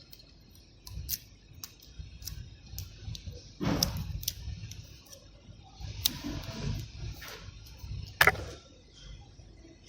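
Small tools being handled at a workbench: a scatter of light clicks and taps, with a few brief scrapes, the loudest about four and eight seconds in.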